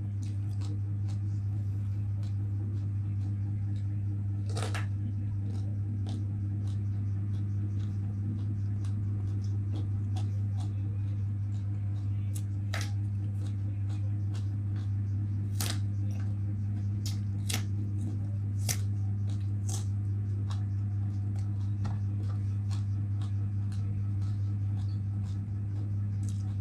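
A person biting and chewing raw green eggplant: sharp crisp clicks and crunches scattered throughout, several louder ones standing out. Underneath is a steady low electrical hum, which is the loudest sound.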